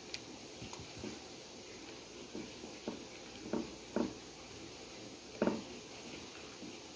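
Fried potato slices being laid by hand into a glass baking dish of creamy sauce: a few scattered light knocks and handling sounds, the loudest about five and a half seconds in.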